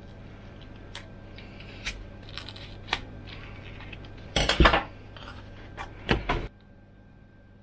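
Scissors snipping EPP foam with a few light clicks, then scissors and foam pieces set down on a wooden desk: a louder metallic clatter about four and a half seconds in and a shorter one about a second and a half later.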